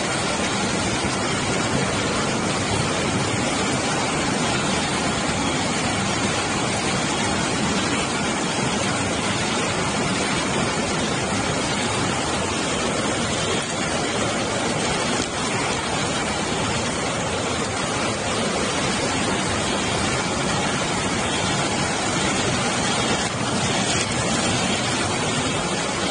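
Floodwater rushing through a street: a loud, steady noise of fast-flowing water.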